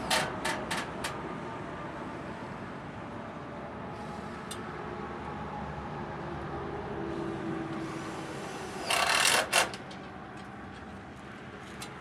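Cordless screw gun driving screws through steel eave trim: a few quick clicks in the first second and a loud, harsh burst of under a second about nine seconds in, over a steady low background rumble.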